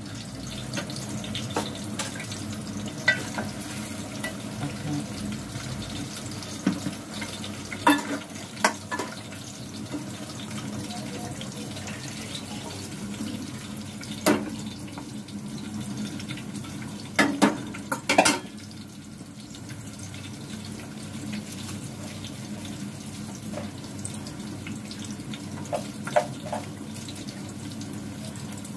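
Chopped onions frying in oil in a pot on a gas stove, a steady sizzle. Now and then utensils knock sharply on the pots, about eight times.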